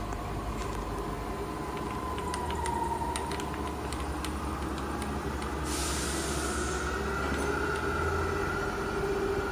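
SWI TRAK CNC vertical milling machine running, its motor whine drifting up in pitch over a low hum, with light clicks and a hiss of about a second some six seconds in.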